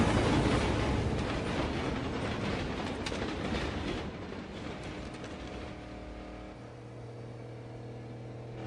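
A train rushing past, its rumble fading away over several seconds. A faint low steady hum remains in the last few seconds.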